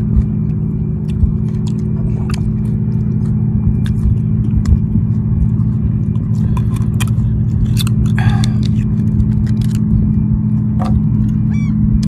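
Steady low rumble with a constant hum, over which come scattered sharp clicks and taps of oyster shells and a knife being handled.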